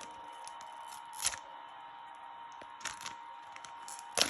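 Handling of plastic toy packaging: a few separate sharp clicks and crackles over a low steady background.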